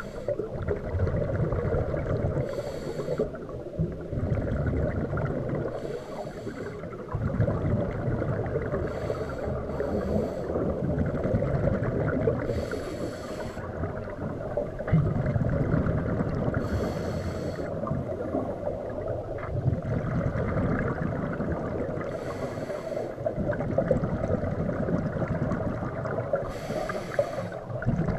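Scuba diver breathing through a regulator underwater: a short hiss of air on each inhalation every few seconds, with rumbling, gurgling exhaled bubbles in between.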